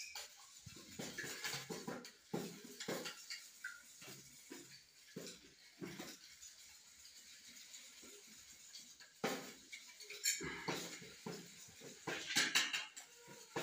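A metal spoon beating eggs in a stainless steel bowl, clinking and scraping against the metal in uneven strokes. The strokes thin out for a few seconds in the middle, then come back stronger.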